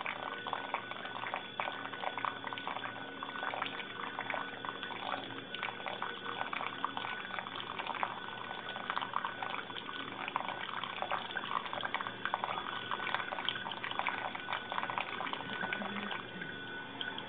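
Hot water poured in a thin steady stream from a gooseneck kettle onto wet coffee grounds in a Chemex paper filter, a continuous trickling splash with fine crackling.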